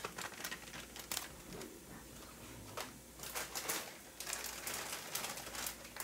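Frozen mixed vegetables sizzling in a hot pot with peppers and onions, with a light hiss and scattered, irregular pops and crackles.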